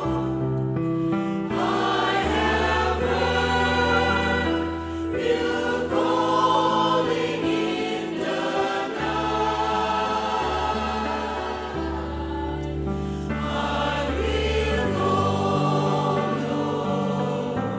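A choir singing a Christian worship song, with long held bass notes underneath that change every couple of seconds.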